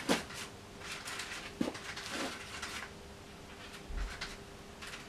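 Palette knife scraping and working oil paint in short, irregular strokes, with a soft thump about four seconds in and a faint steady hum behind.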